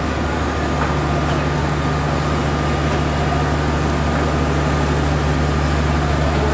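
A train's diesel engine running with a steady low drone and a thin, constant high tone above it, over an even wash of station noise.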